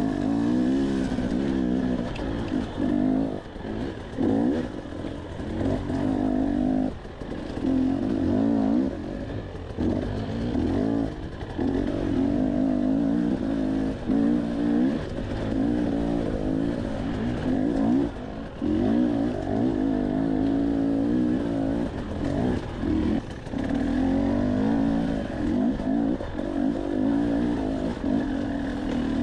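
Dirt bike engine close to the microphone, revving up and down over and over as the throttle is opened and closed on a rough trail, with brief dips every few seconds.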